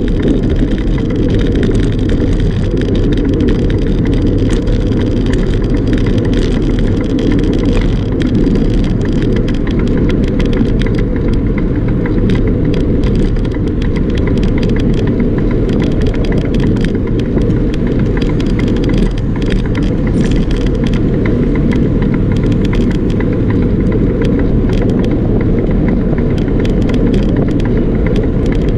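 Wind rushing over the microphone of an action camera on a moving bicycle: a loud, steady low rumble, with faint scattered rattling clicks over it.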